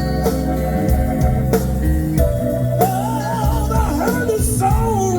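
Live blues band playing, with drums and bass under a steady beat; about halfway through, a wavering melodic line comes in over the band.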